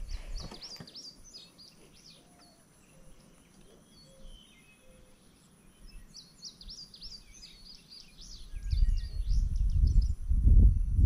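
Songbirds chirping in short rising and falling calls, once near the start and again from about six seconds in. From about eight and a half seconds a loud, uneven low rumble of wind gusting on the microphone sets in.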